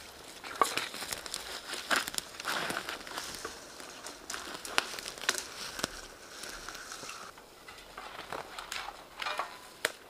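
Dry deadwood branches crackling and rustling as they are gathered and handled, with many sharp twig snaps scattered throughout.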